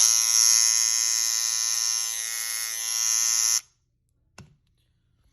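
BaByliss FX3 hair trimmer running with a loud, steady, high buzz for about three and a half seconds, then switched off, with a single click about a second later. The loud noise is a fault that persisted after oiling, cleaning and taking the trimmer apart.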